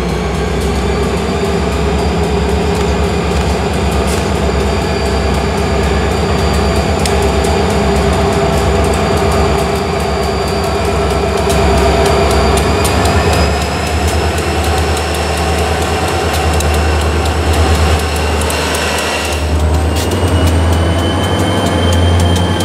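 New England Central diesel freight locomotive passing close by at slow speed, its engine rumbling steadily, with thin high-pitched squealing tones from the train running over it throughout. A brief hiss near the end.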